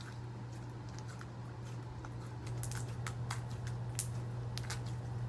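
Slime being kneaded and squished by hand to work colouring into it, giving scattered small wet clicks and pops.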